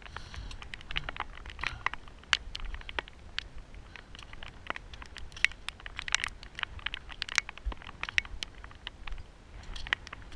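Footsteps crunching on loose shale scree, with trekking-pole tips clicking against the rock: a string of irregular sharp clicks and crunches, several a second, over a low rumble.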